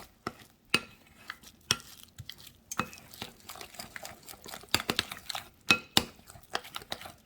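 A utensil stirring a thick batter of cornstarch, flour, egg whites and sparkling water in a bowl, with irregular clicks and knocks against the bowl's sides as the batter, still a little lumpy, comes together.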